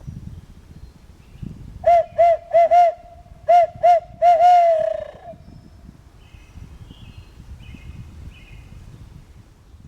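Barred owl hooting in its 'who cooks for you, who cooks for you-all' rhythm: four quick notes, a short pause, two more, then a long falling note at the end. Faint songbird chirps sound before and after it.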